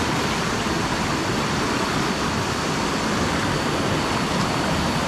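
Stream water rushing, a steady, even noise.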